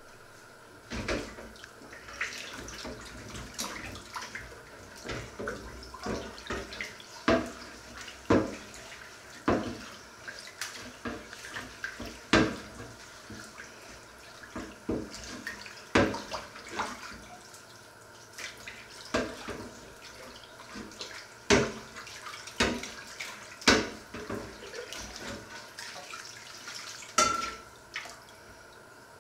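Washing up a frying pan by hand in a stainless-steel sink: water splashing and sloshing as it is scrubbed with a sponge, with irregular knocks and clatter of the pan against the sink, and a brief squeak near the end.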